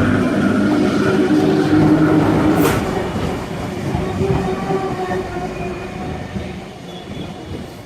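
A train running past and moving away, its steady mechanical rumble fading out over several seconds, with a single sharp click about a third of the way in.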